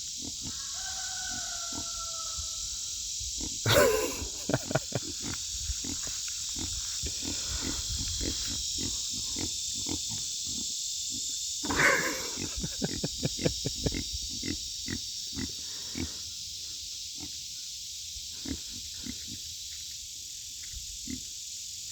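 A pig grunting twice, each time followed by a run of quick, wet lapping and slurping as the animals drink water, over a steady drone of insects.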